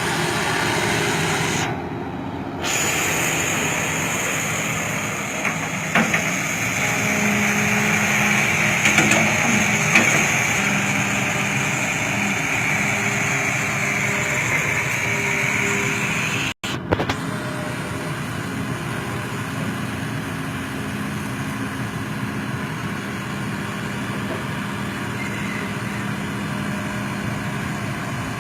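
Excavator's diesel engine running steadily, with a higher whine that swells and fades for several seconds in the middle. The sound drops out briefly twice.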